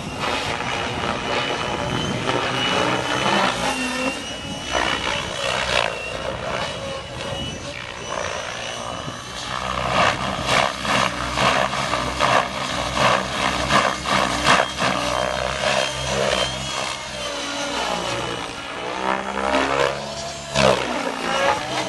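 Electric 700-class RC helicopter (Gaui X7) flying 3D aerobatics: main rotor whooshing and motor whining, the pitch gliding up and down as the manoeuvres load the rotor. About ten seconds in come rhythmic blade whooshes, about two a second, for several seconds.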